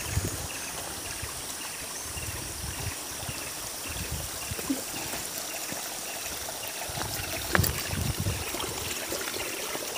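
Spring water running and trickling steadily. A faint high chirp repeats about twice a second through the first half, and a brief knock comes about three-quarters of the way through.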